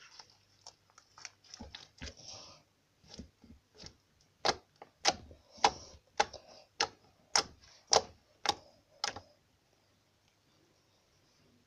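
Slime squeezed and pressed with the fingers, making sharp wet clicks and pops. They come soft and scattered at first, then as a steady run of louder pops about two a second that stops a few seconds before the end.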